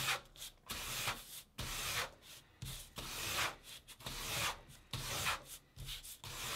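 Edge of a small notepad rubbed back and forth over a paper sheet glued to sticker paper, pressing out the air bubbles: a run of dry rubbing strokes, about two a second.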